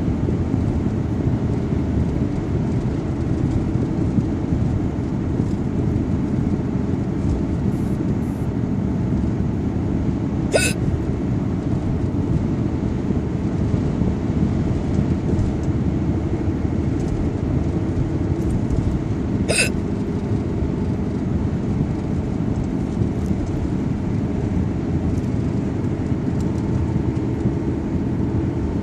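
A person hiccuping twice, two short sharp hics about nine seconds apart, over a steady low rumble.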